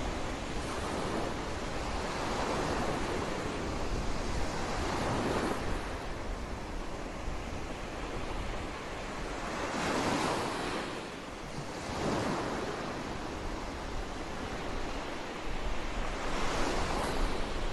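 Stormy sea surf: waves breaking and rushing up the shore in repeated surges, with wind buffeting the microphone.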